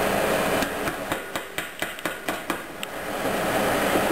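A quick run of about ten sharp metallic taps on a stainless steel stockpot, a few per second, as crushed garlic is knocked off a utensil into the pot.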